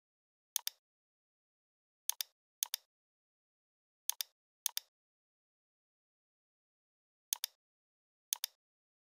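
Computer mouse button clicking about seven times. Each click is a quick press-and-release double tick, irregularly spaced, some in pairs half a second apart, with dead silence between.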